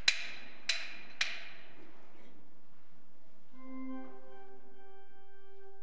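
A small bell struck three times in quick succession, its ringing dying away over about a second. About three and a half seconds in, a church organ begins playing held chords.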